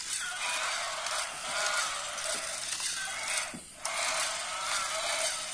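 Walking toy Spinosaurus's small electric motor and plastic gears whirring and clattering as its legs step. The sound drops away for a moment about three and a half seconds in, then resumes.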